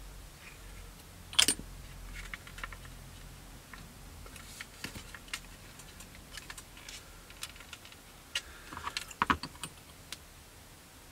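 Light clicks and taps of plastic model kit parts being handled and pressed together, with a sharp click about a second and a half in and a quick cluster of clicks near the end.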